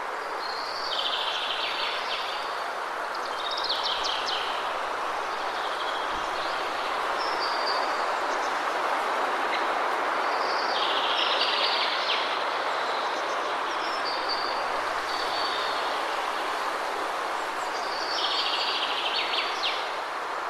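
Steady rushing of a waterfall, with birds chirping in short bursts every few seconds over it.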